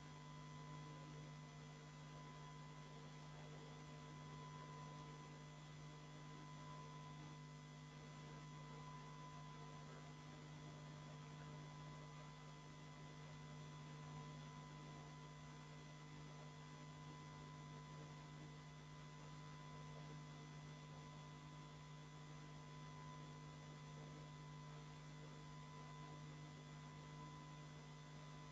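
Near silence with a faint, steady electrical hum and a thin, steady high tone above it.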